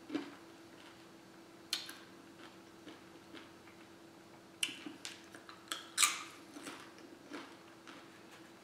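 Scattered small clicks and crunches of someone eating tortilla chips and dipping them in a glass bowl of salsa, with a fork clinking at the plate, over a faint steady hum.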